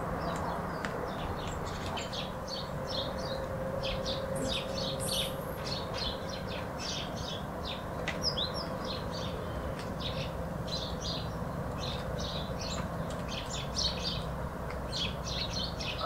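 Small birds chirping in many short, rapid calls throughout, over a steady low background rumble. A faint steady hum under the birds fades out about six seconds in.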